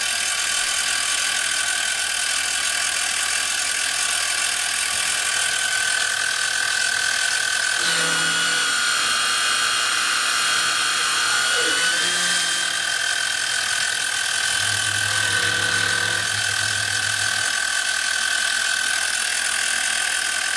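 PM-25MV mill-drill's spindle running with a steady whine while a roughing end mill cuts through an aluminum baluster, the cut sounding loudest from about 8 to 12 seconds in. The CNC Y-axis motor hums as it drives the table, with a steady low hum from about 14 to 17 seconds in.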